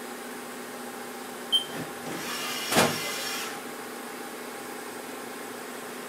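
Haas SL-30 CNC lathe running with a steady hum. A sharp click comes about a second and a half in, then a short whirring rush swells, peaks and stops about a second later as the tool turret moves.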